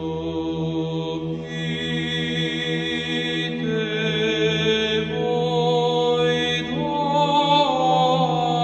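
Orthodox church chant: voices sing a slow melody over a steady held drone note, the melody moving in steps late on.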